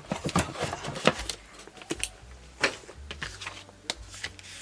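Paper pages being handled and folded: irregular rustling with light clicks and taps.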